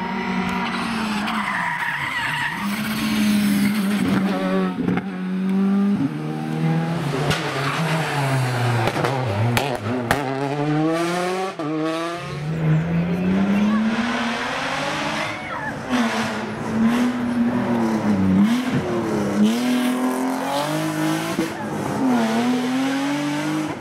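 Rally cars at full speed, a Škoda Fabia and a BMW E36 3 Series among them: engines revving high through the gears and dropping sharply on downshifts and braking, over and over. There are a few sharp cracks about halfway through.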